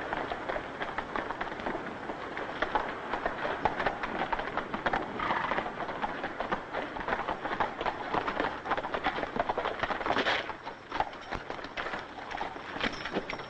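Horses galloping: a dense, continuous clatter of hoofbeats, a little quieter after about ten seconds.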